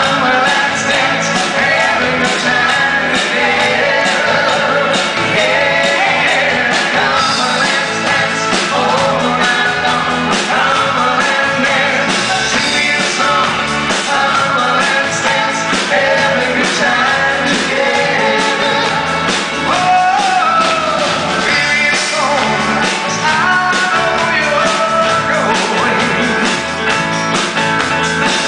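A live pop-rock band playing a song: male lead vocals with acoustic guitar and electric bass over a steady beat.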